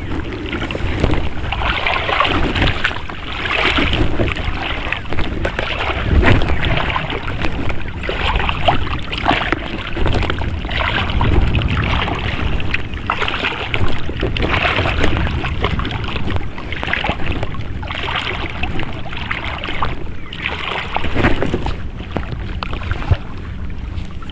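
Small waves lapping and washing against a rocky shoreline in uneven surges about once a second, with wind buffeting the microphone.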